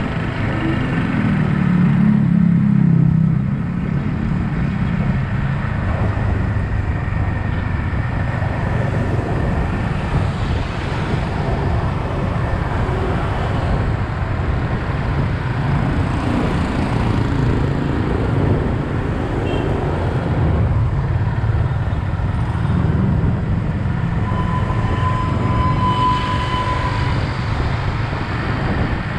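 Yamaha XSR 155's single-cylinder engine running under way, with road and traffic noise; the engine note rises briefly about two seconds in. A thin steady high tone sounds for a few seconds near the end.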